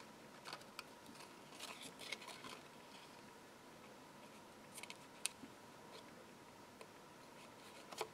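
Faint scattered snips and small paper rustles: small pointed craft scissors cutting into thin die-cut decoupage card while the piece is handled. A few sharper clicks stand out, the sharpest about five seconds in.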